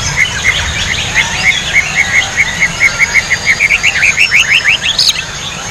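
White-rumped shama singing: a long run of short repeated notes, about four a second, that change to quick rising slurs and end on a higher note near the end.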